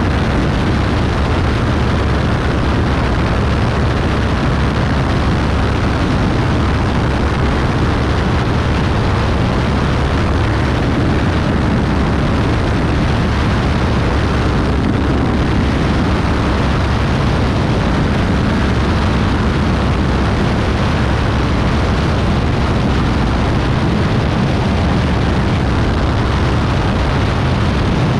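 Beechcraft Bonanza B35's air-cooled flat-six engine and propeller running steadily in flight, heard from outside on the airframe with heavy wind rush over the microphone.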